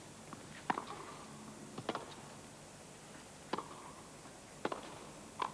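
Tennis rally: a racket hitting the ball and the ball bouncing on the hard court, about six sharp pops roughly a second apart, over a faint steady hum.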